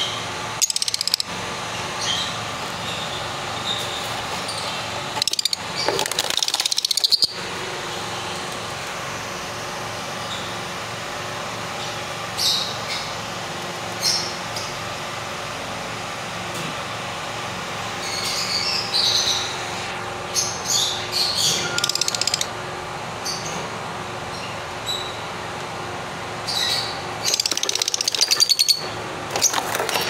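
Lovebirds chirping in short scattered bouts over a steady background hum, with two louder noisy bursts, one about six seconds in and one near the end.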